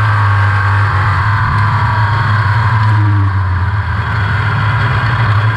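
360 sprint car's V8 engine running hard at speed on a dirt track, heard from inside the cockpit, a steady loud drone.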